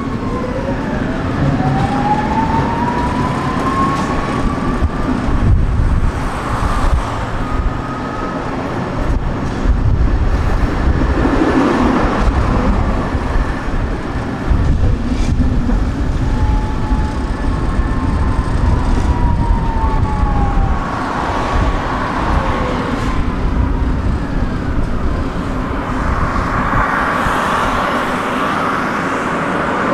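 Tram's electric traction motors whining, rising in pitch as it speeds up in the first few seconds and falling again as it slows past the middle. The low rumble of the running gear on the rails goes on beneath.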